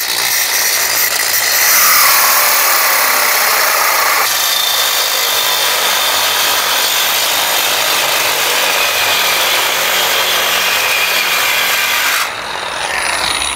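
JPT 21-volt cordless angle grinder with a cut-off wheel cutting through a metal rod, a loud, steady grinding hiss. It quietens about a second before the end as the cut finishes, then stops.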